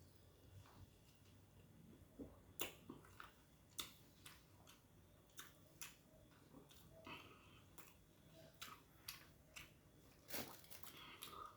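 Faint mouth sounds of a person eating: chewing with scattered small wet clicks and smacks, a few sharper ones about two and a half, four and ten seconds in.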